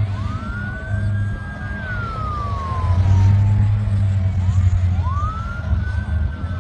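Emergency vehicle siren wailing, rising to a held high note and then falling slowly in pitch, twice, over a steady low drone.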